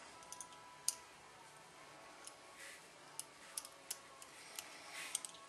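Small steel parts of a single action revolver clicking and tapping as the trigger, its spring and the trigger screw are worked into the frame: a few scattered light clicks, the sharpest about a second in.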